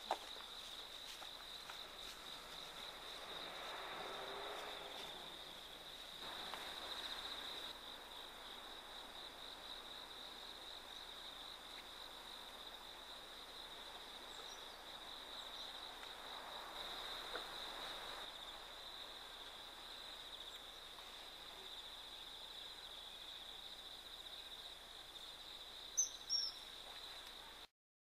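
Steady high chirring of insects, a continuous shrill trill. Two short, sharp high calls about two seconds before the end.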